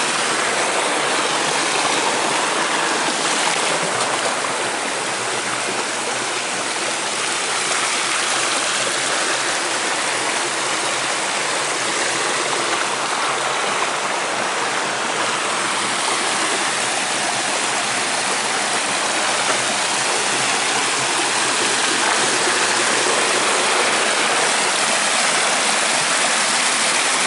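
Water pouring steadily down a waterfall, an unbroken rushing splash.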